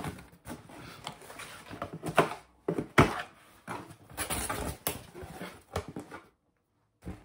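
Cardboard shipping box being handled and torn open: irregular rustling, scraping and tearing of cardboard and packing tape, with one sharp snap about three seconds in. The sound cuts out completely for about half a second near the end.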